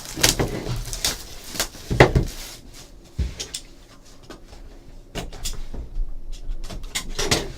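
Hands opening a sealed trading-card hobby box: scattered rustles, scrapes and small knocks of packaging being pulled and torn at irregular moments, the loudest about two seconds in.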